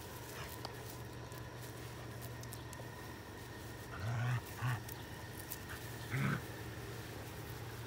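Two dogs playing tug-of-war over a plush toy, with three short growls: two close together about four seconds in, and a third about six seconds in.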